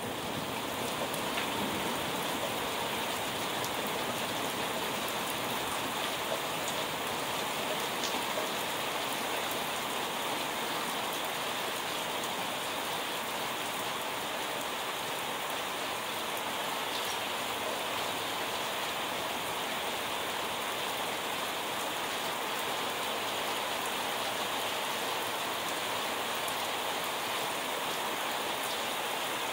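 Heavy thunderstorm rain pouring down, a steady even hiss.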